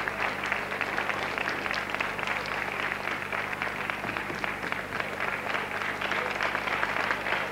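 A children's audience applauding: many hands clapping in a steady, dense patter, with a steady low hum underneath.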